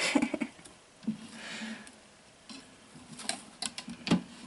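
Glass terrarium front doors being swung shut and latched: a run of light clicks and knocks of glass on its frame, with a short soft hiss between them.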